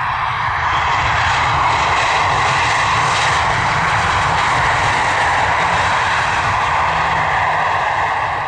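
Boeing 737-800's CFM56-7B jet engines running loud and steady as the airliner rolls out on the runway just after touchdown: a dense rush of jet noise with a low rumble underneath.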